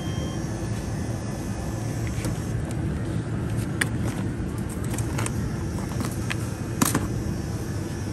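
Steady low hum of a supermarket's open refrigerated display case and store ambience, with a few sharp clicks, the loudest about seven seconds in.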